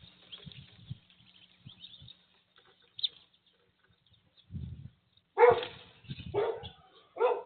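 A dog barking three times, about a second apart, in the second half. Faint high bird chirps come before it.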